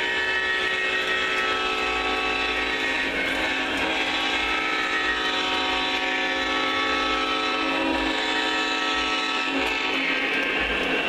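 O scale Lionel Legacy diesel locomotives' onboard sound system playing a held multi-note air horn over diesel engine and rail noise as the train passes.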